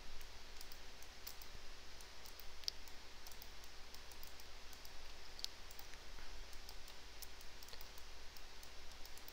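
Computer mouse and keyboard clicks, scattered and irregular, over a faint steady hum.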